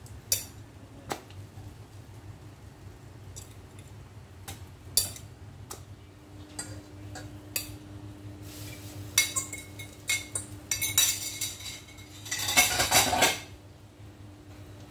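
A metal fork clinking and scraping against a ceramic plate as bread slices are pressed into beaten egg and milk, in scattered sharp taps. Near the end comes a louder rush of noise about a second long.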